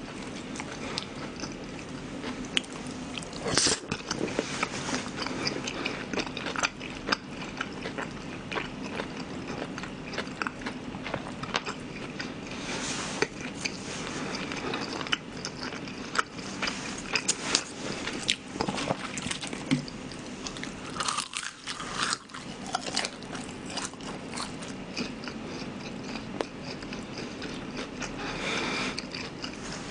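Close-miked chewing of battered sweet and sour shrimp, with irregular crunches and crackles as the fried glutinous-rice batter breaks. The batter has gone somewhat soggy from humid, rainy weather, so it is less crisp than usual.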